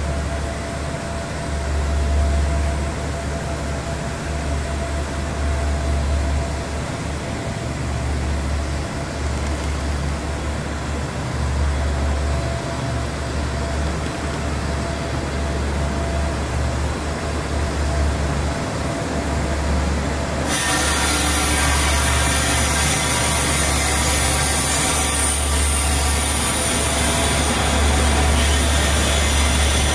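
A diesel train standing at a platform and idling, a steady low engine rumble with a constant hum over it. About two-thirds of the way in, a loud steady hiss joins the rumble.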